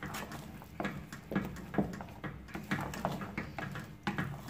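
Spoon scraping and knocking against a stainless steel pot while stirring thick, stiff semolina halwa, about two strokes a second in an uneven rhythm.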